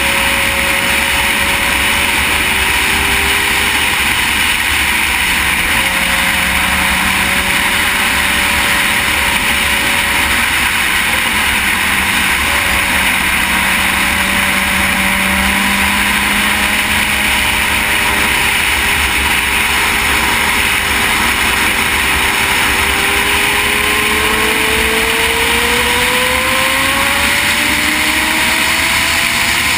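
Honda CBR600RR inline-four sport bike running at road speed, heard from a camera mounted on the bike: a loud, steady rush of wind and road noise over the engine's hum. Over the last several seconds the engine pitch rises steadily as the bike accelerates.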